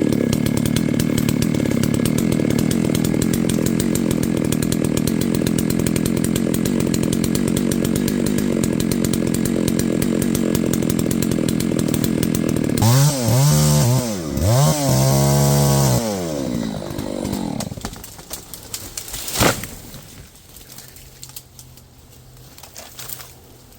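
Large gas chainsaw cutting through a maple trunk at full throttle. About thirteen seconds in, the throttle is blipped up and down several times before the saw drops to a low idle. A single sharp impact follows, the kind made when a felled tree strikes the ground.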